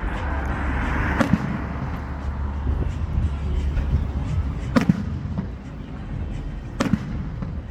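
Fireworks exploding at a display: three sharp bangs, about a second in, near five seconds and near seven seconds, over a steady low rumble.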